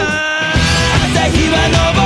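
Anime opening theme music cutting from one song to the next. A held note ends, the bass drops out for a moment, and about half a second in a rock song starts with full band.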